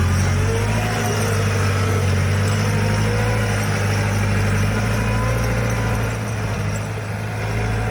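A motor vehicle's engine running steadily at an even low hum, with a constant rushing noise over it.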